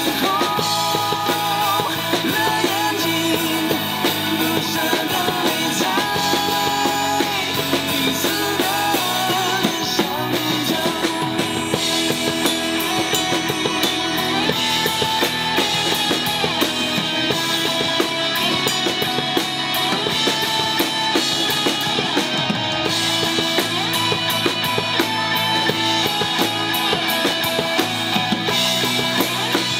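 Acoustic drum kit played live along with a recorded Mandopop backing track, in an instrumental passage with no singing; the drums keep a steady beat under melodic guitar and keyboard lines.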